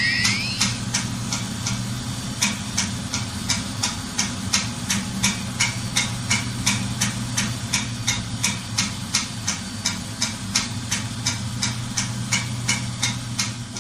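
Steady rhythmic ticking, about three sharp clicks a second, over a continuous low hum; it cuts off suddenly near the end.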